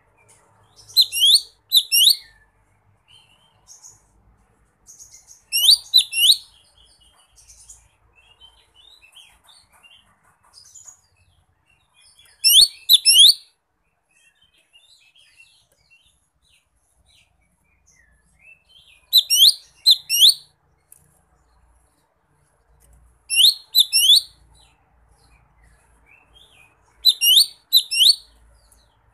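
Lesser green leafbird (cucak ijo mini) calling: six short bursts of two or three sharp, high notes sliding down in pitch, every four to seven seconds, with soft twittering in between. It is the call it uses to challenge a rival.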